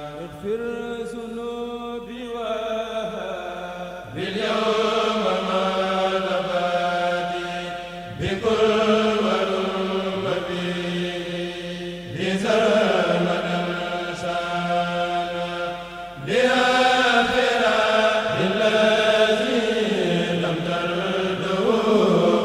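A Mouride kurel, a group of men's voices, chanting Sufi khassida poems together without instruments, amplified through microphones. The chant runs in long melodic phrases, with a fresh loud entry about every four seconds.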